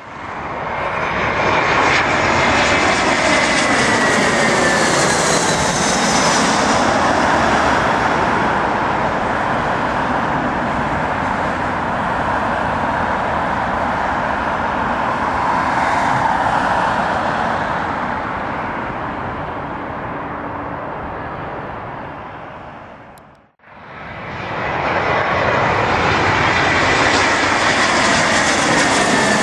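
Jet airliner engines on landing approach, Airbus A320-family twinjets passing low, with a falling whine as the first one goes by. Its noise fades slowly, drops out abruptly about three-quarters of the way through, then a second approaching jet comes back in loud.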